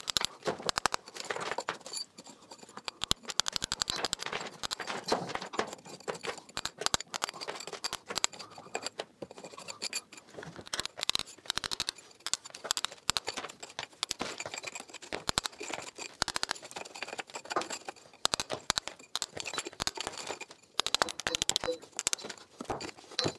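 Hammer striking a cold chisel in quick, irregular taps, chipping old lime-and-sand mortar out of a crack in a brick wall.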